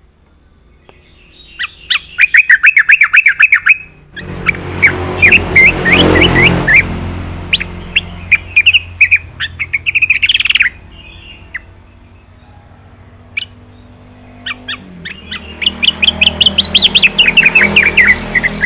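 Sooty-headed bulbul (trucukan) singing in three bouts of fast, repeated whistled notes, with short pauses between them.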